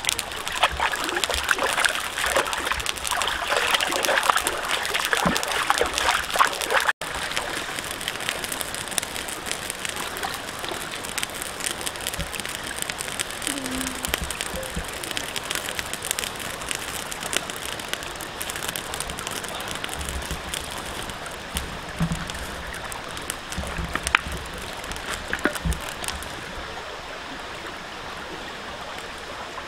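Shallow stream running over rocks, with water splashing for the first seven or so seconds as a fish is washed in it by hand. After that the stream runs on steadily.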